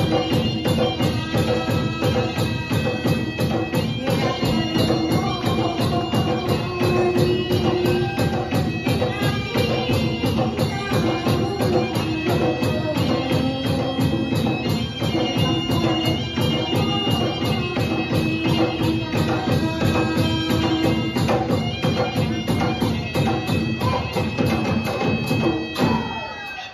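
Live Tiwa folk dance music: a waist-slung drum beating fast and steady under a held melody line. The music dies away just before the end.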